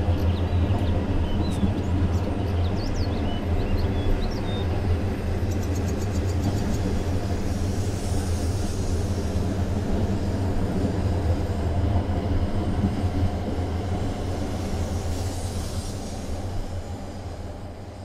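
Fujikyu Railway's Fujisan View Express, a three-car electric train, rolling slowly past with a steady low rumble and hum of its running gear on the rails, fading over the last couple of seconds as the end car goes by.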